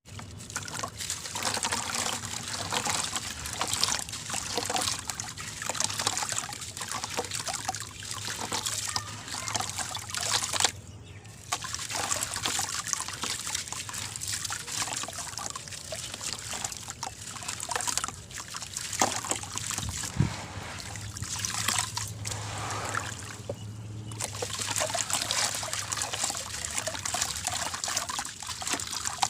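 Clumps of dry sand and cement crumbling into water: a dense, steady crackle and trickle of many small grains and splashes, with a brief lull about eleven seconds in.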